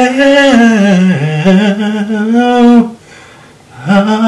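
A man singing a wordless, gospel-style run: one long held note that bends up, dips and settles, breaking off just before three seconds in. A second long, steady note starts near the end.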